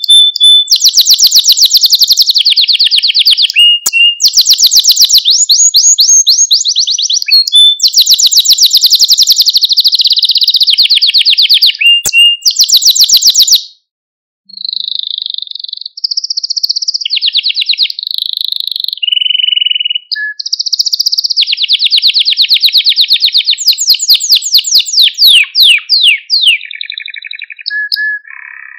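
Domestic canary singing: long, high trills of very fast repeated notes, one phrase after another. About halfway it breaks off briefly, then goes on with changing, shorter phrases and ends on lower notes.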